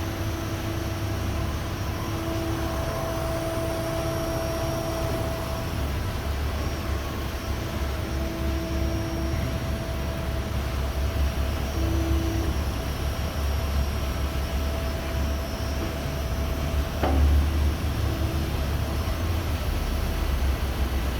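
DAVI MCA four-roll plate bending roll running: a steady low machine hum and rumble, with a higher tone cutting in and out every few seconds as the roll drive works, and a single sharp click about two-thirds of the way through.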